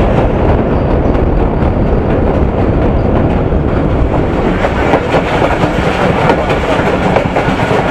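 Passenger train running along the track, heard from inside the carriage by the window: a loud, steady rumble of wheels on rail with a constant clatter of clicks and rattles.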